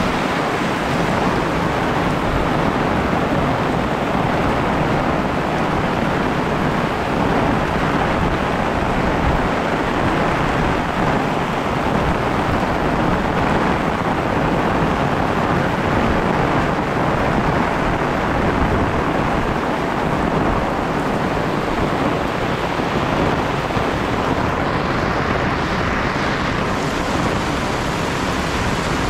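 Heavy tropical rain pouring steadily, a loud, even hiss of dense rainfall.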